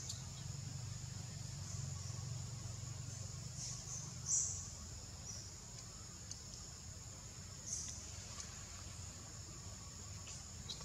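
Steady high-pitched drone of insects, with a low rumble underneath. A few short high chirps cut in; the loudest comes about four seconds in and another near eight seconds.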